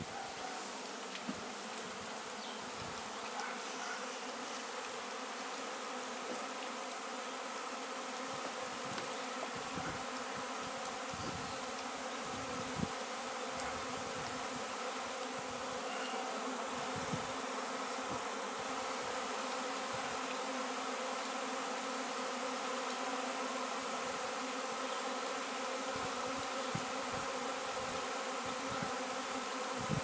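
A swarm of honey bees in flight, many wings making one steady, droning hum that swells slightly over time. A few faint knocks come through now and then.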